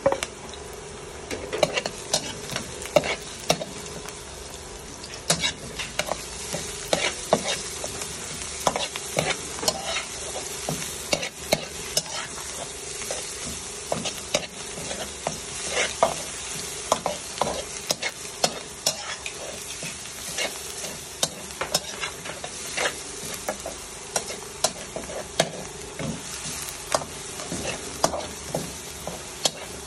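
Chopped onion, bell pepper and garlic sizzling in hot oil in a metal wok, with the spatula scraping and knocking against the pan in quick, irregular strokes as the vegetables are stirred. A faint steady hum sits underneath.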